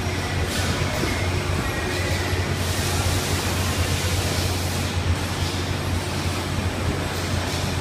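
Steady machinery noise of a running palletizing line, with its industrial robot, roller conveyors and wall exhaust fans, made up of a constant low hum under an even hiss.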